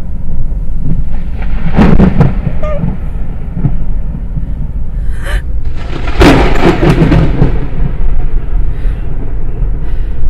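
Close thunder: a sharp crack about two seconds in, then a louder, longer crack with rumble about six seconds in. Both come over the steady low road rumble of the car.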